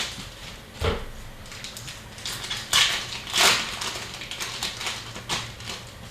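Trading cards being handled and a foil card-pack wrapper crinkling: irregular rustles, snaps and soft clicks, loudest a little under three seconds in and again about half a second later.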